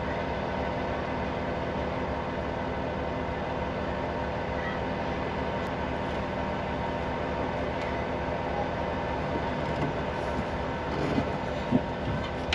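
Mecalac 8MCR excavator's diesel engine idling steadily, heard from inside the cab. A few light knocks near the end.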